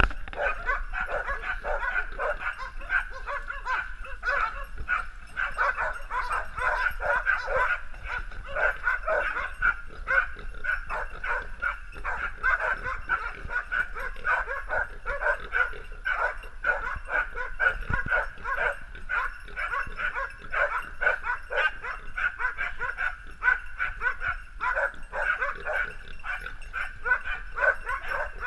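A pack of hunting spaniels barking and yelping without pause, several barks a second and overlapping, as they hold a wild boar at bay in a brush pile.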